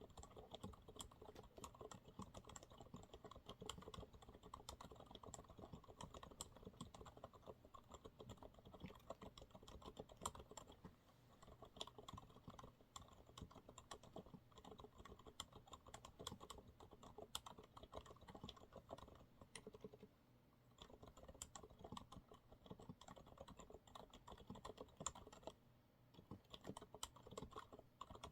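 Continuous soft typing on a Monsgeek MG108W mechanical keyboard with TTC silent brown switches: quick, irregular, muted keystrokes with a couple of brief pauses.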